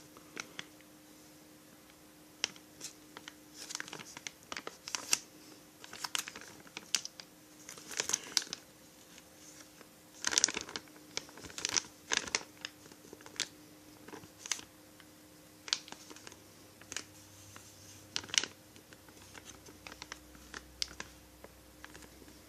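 Plastic parts bags rustling and small chainsaw kit parts clicking as they are handled and unpacked, in short irregular bursts with pauses between.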